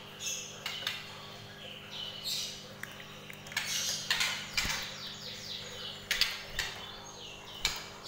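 Short high chirps from a caged white-rumped shama, repeated throughout, several sliding down in pitch. Rustling and sharp knocks come from the cage's mesh cover being handled, over a steady low hum.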